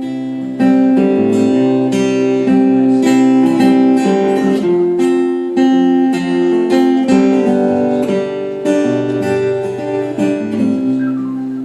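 Acoustic guitar strummed in a steady rhythm through an instrumental break in a folk song, with no singing.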